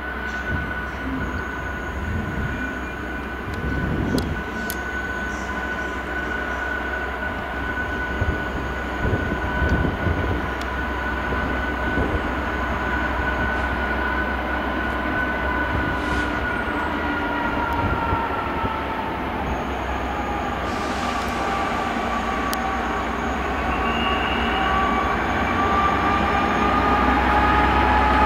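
Class 66 diesel-electric locomotive, with its two-stroke V12 engine, hauling a freight train of covered wagons. It runs with a low rumble and a steady high whine that dips in pitch about two-thirds of the way through, growing louder as the train approaches.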